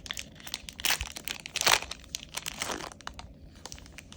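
Foil trading-card booster pack crinkling as it is handled and opened, in a run of sharp crackles and rustles, the loudest about a second and a half in, thinning out near the end.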